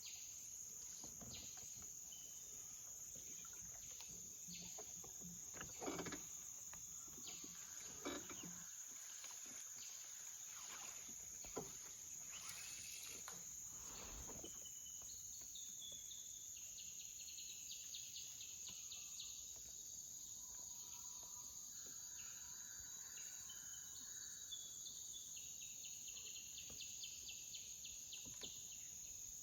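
Jungle insects droning steadily in a high-pitched buzz, with a few light knocks and scattered pulsing calls over it.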